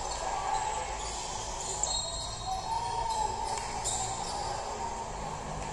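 Live basketball game sound in an arena: a steady crowd murmur with a basketball bouncing on the hardwood court and a few brief sneaker squeaks.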